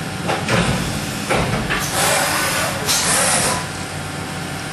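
CNC milling machine cutting aluminium at high speed with an Iscar cutter: a steady machine hum with loud hissing surges of cutting noise, the longest lasting over a second about two seconds in.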